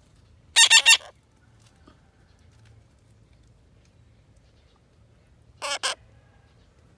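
A bird squawking: three quick, loud, high-pitched calls about half a second in, then two shorter calls near the end.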